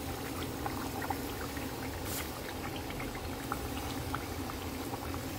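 Thick Nigerian tomato stew simmering in a pot, with small bubbles popping in quick scattered ticks over a steady low bubbling.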